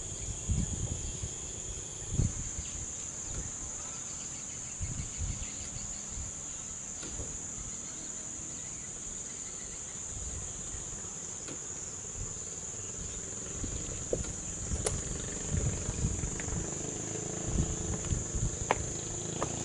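Insects droning with a steady high-pitched buzz that does not let up. Irregular low thumps and rumbles come and go beneath it, and a few sharp clicks stand out near the end.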